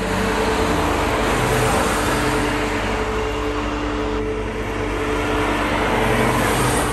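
BMW 635 CSi's straight-six running as the car drives past on a wet road, its engine sound mixed with the hiss of tyres on wet tarmac that swells and fades with each pass.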